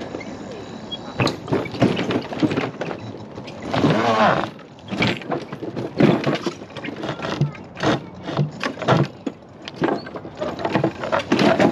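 Mobility scooter jolting over the planks of a wooden footbridge: an uneven run of knocks and rattles, with a short squeal about four seconds in.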